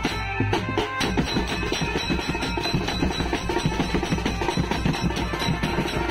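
Procession drum band: snare-type drums beaten with sticks, a bass drum and hand cymbals played together in a fast, steady rhythm of many strokes a second.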